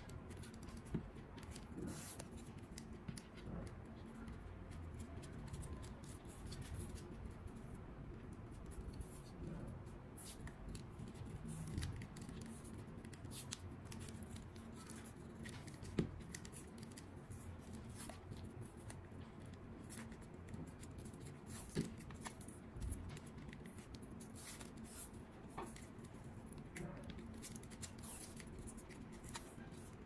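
Faint clicks and handling sounds of hands working with small tools on a cable, with a few sharper clicks scattered through, over a low steady hum.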